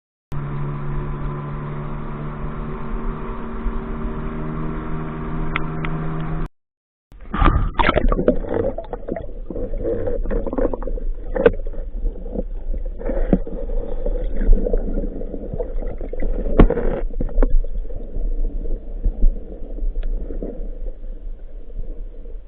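An engine running steadily with an even hum for about six seconds, then cut off by a brief silence. After that comes muffled, irregular rumbling and gurgling with scattered knocks and clicks.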